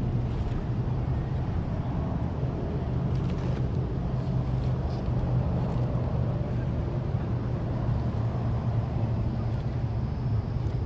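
A steady low mechanical hum, like a nearby engine running, with a few faint short clicks over it.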